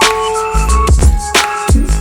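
Background music with a steady beat: hip-hop-style drums over deep bass and held synth notes.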